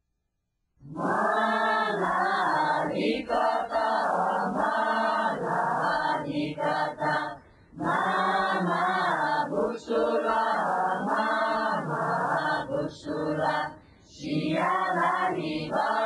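A group of Bunun voices chanting a ritual song together in short repeated phrases. It starts about a second in, after a brief silence, and breaks off briefly near the middle and again near the end.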